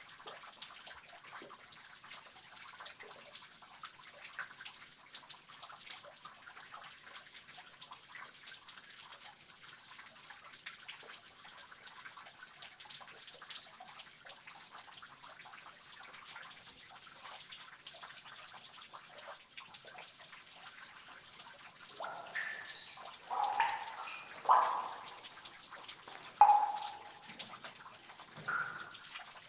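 Water dripping in a cave: a steady patter of many small drips, then a handful of louder single drops plinking one after another over the last several seconds.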